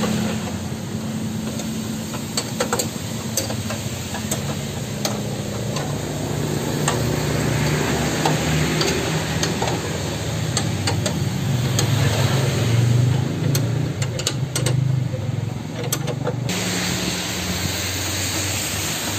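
A steady low mechanical hum under an even hiss, with scattered light clicks and knocks; the hum shifts about three seconds before the end.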